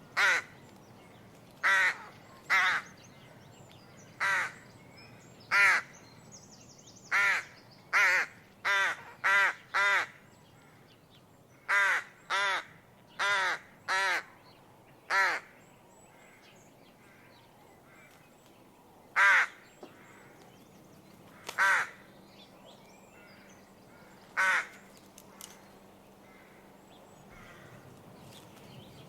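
Rook (Corvus frugilegus) cawing: a series of short caws, each rising then falling in pitch. They come quickly in the first half, then spread out, and the last comes about two thirds of the way through.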